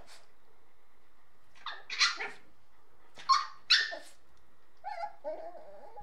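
Puppies barking in play: two pairs of short, sharp barks, then a drawn-out wavering call that falls in pitch near the end.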